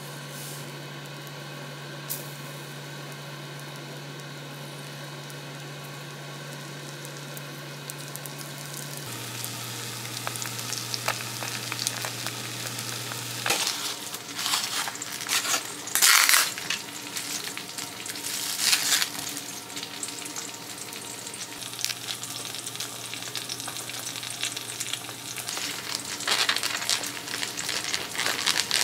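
Oil frying in a pan on an induction hob: a steady low hum at first, then sizzling that gets busier from about nine seconds in. Later come several sharp crackles of a plastic natto container's film being handled and peeled.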